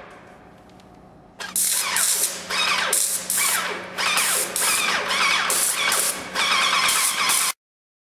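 Wagner ProSpray 3.21 airless paint sprayer running: a steady motor hum, then, about a second and a half in, loud rhythmic hissing pulses about twice a second as the piston pump works under pressure. The sound stops abruptly near the end.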